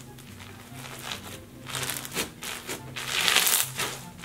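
Pink floam, a white-glue slime packed with foam beads, squeezed and kneaded by hand, the beads crackling and crunching. The crackling comes in patches and is loudest a little past three seconds in.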